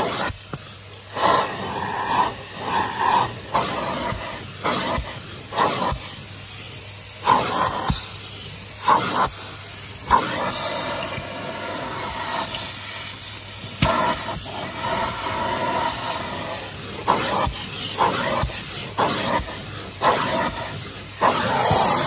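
Numatic Henry cylinder vacuum cleaner running, its metal wand and nozzle sucking along car carpet: a steady rushing hiss of air broken by frequent irregular clicks and scrapes.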